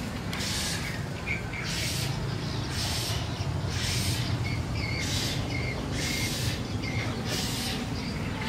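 Outdoor ambience: a high hiss pulsing a little more than once a second, with short high chirps between the pulses and a steady low rumble underneath.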